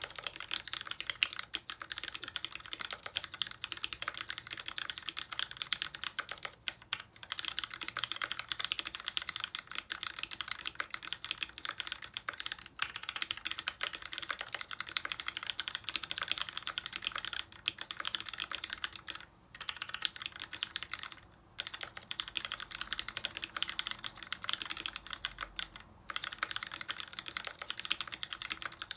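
Fast, continuous typing on a custom 60% mechanical keyboard with lubed vintage Cherry MX Brown tactile switches, the keystrokes running together in a dense clatter, broken by a few brief pauses.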